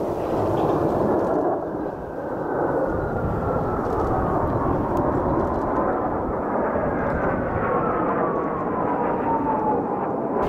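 Formation of Kawasaki T-4 jet trainers passing overhead: a steady jet roar with an engine whine that falls slowly in pitch as they go by.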